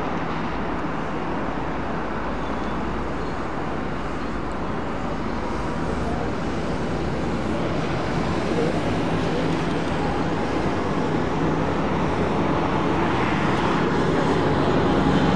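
Steady city street ambience: traffic noise with a background murmur of passing people's voices, growing slightly louder toward the end.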